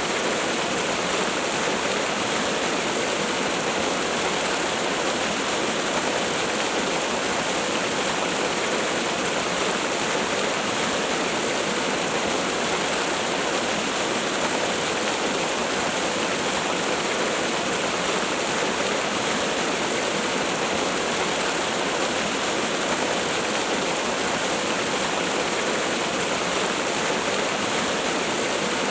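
Waterfall: a steady, unbroken rush of falling water, with no pitch and no change in level.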